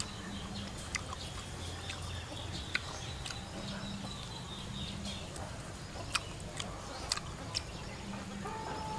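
Sparse soft clicks and smacks of someone chewing and eating a piece of cooked chicken by hand, over a steady low outdoor background with faint bird chirps.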